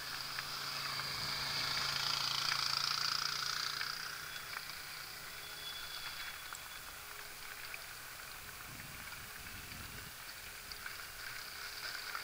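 Mountain bike tyres rolling over wood chips and then gravel, a steady crunching hiss with light scattered clicks and rattles from the bike; loudest about two to three seconds in.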